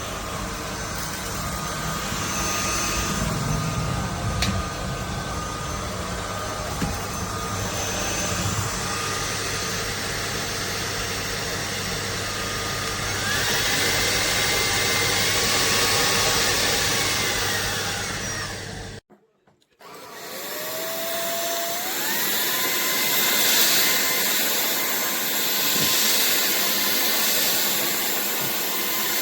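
AlloyMove cordless vacuum running, its motor whine rising in pitch about halfway through. Near the two-thirds mark it cuts out for about a second, then starts again with a rising whine as the motor spins back up.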